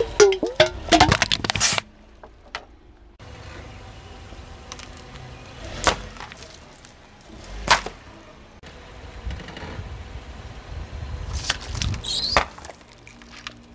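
Car tyre rolling over and crushing objects: a metal can crumpling under it with a burst of cracks and creaks in the first two seconds. Then plastic drink bottles give way with sharp cracks about six and eight seconds in, and near the end a bottle bursts and sprays its milky drink.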